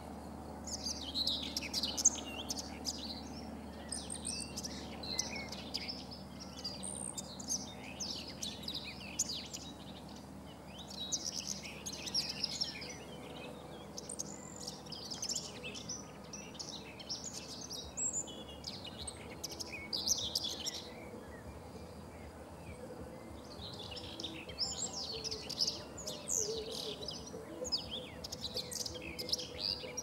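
Common whitethroat (Sylvia communis) singing: short, quick warbling phrases repeated every couple of seconds with brief pauses, and a longer run of song near the end.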